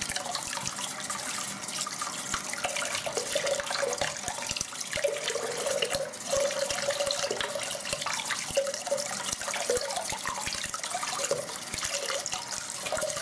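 Tap water running and splashing through a horsehair shaving brush as the lather is rinsed out under the faucet, with a steady tone sounding on and off through the splashing.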